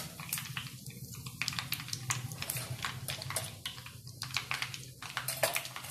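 Mustard seeds, cumin and curry leaves crackling and spluttering in hot oil in a kadhai during a tadka, with irregular sharp pops throughout. A steady low hum runs underneath.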